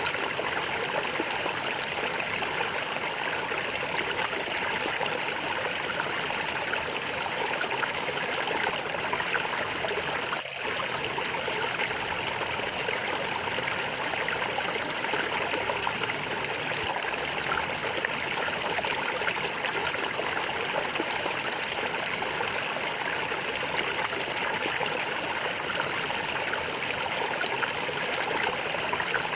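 Flowing stream water gurgling and trickling steadily, with one brief dip in level about ten seconds in.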